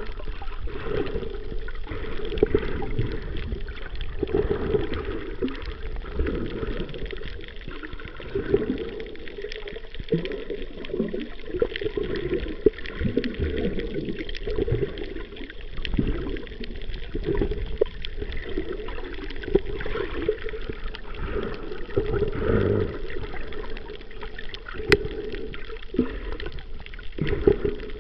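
Water sounds heard through an underwater camera: muffled, uneven sloshing and gurgling that surges every second or two, with scattered small clicks.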